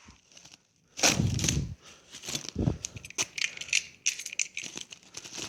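A bag being opened and rummaged through: crinkling and rustling with scattered clicks and knocks of packages being handled, and a louder burst of handling noise about a second in.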